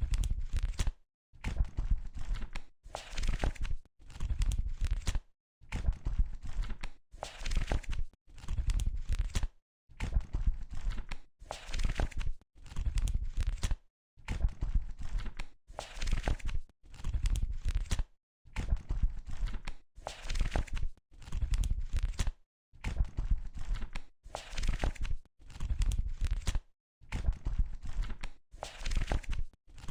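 Book pages being turned one after another, each page flip a short papery rustle with a brief silent gap before the next, about two flips every three seconds.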